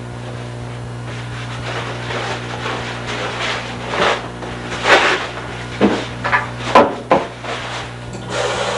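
Scrapes and knocks of objects being handled, several short sharp ones about halfway through and after, over a steady low hum.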